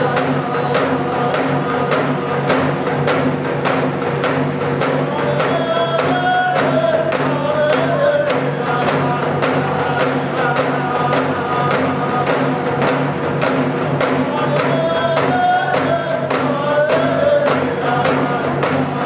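Music: voices chanting over a steady low drone, with a regular percussive beat about twice a second.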